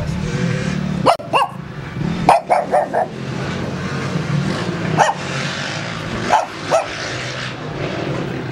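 A dog barking about nine times in short groups: two barks, then four in quick succession, then a single bark and a final pair, over a steady low rumble.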